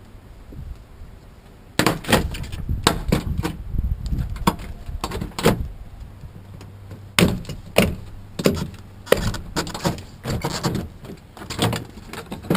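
Rear door trim panel of a 1999 Chevrolet Tahoe being pulled off the door: a run of sharp clicks and knocks starting about two seconds in as the push-in retaining clips pop free and the plastic panel knocks against the door.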